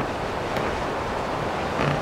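Blizzard wind blowing in a steady, dense rush, with two brief louder gusts, one at the start and one near the end.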